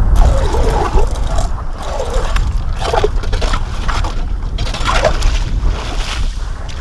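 Hand ice auger drilling through wet late-season ice, its blades scraping and slush sloshing in the hole in repeated bursts, with heavy wind rumble on the microphone. Near the end the auger is pulled up out of the hole with a watery splash.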